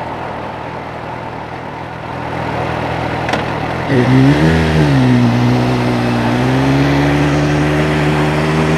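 Suzuki GSR 750's inline-four engine with its aftermarket exhaust, heard on the move over wind and road noise. About four seconds in, the engine note comes up clearly, rises briefly, dips, and then holds at a steady cruising pitch.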